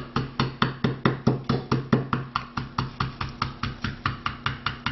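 Red hand-held lemon squeezer used as a mallet, tapping marinated chicken breasts through plastic cling wrap on a wooden cutting board to flatten them. The taps are quick and even, about five a second.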